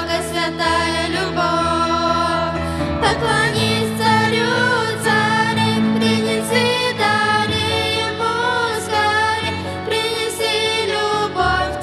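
A vocal trio, a woman and two young girls, singing a Russian Christmas hymn into microphones over a sustained instrumental accompaniment.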